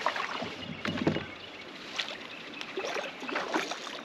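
A handful of separate splashes and knocks, the loudest about a second in, as a small bass is brought alongside a kayak and landed with a net.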